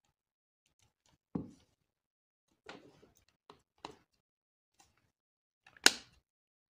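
A smartphone's plastic mid-frame being pressed and snapped onto the display assembly by hand, its clips catching. A dull knock comes about a second and a half in, then some handling clatter and a couple of small clicks, and a sharp snap near the end, the loudest sound.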